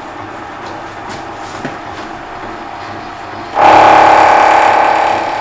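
Milling machine running with a 2-inch face mill; about three and a half seconds in, the cutter's inserts bite into the metal block with a sudden loud, ringing cut that slowly eases off.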